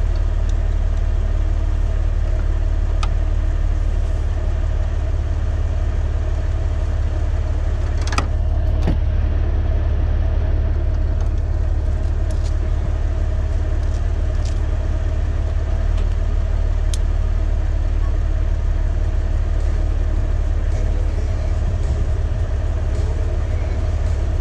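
Off-road vehicle's engine idling steadily with a deep rumble. A few sharp clicks, the loudest a pair about eight seconds in.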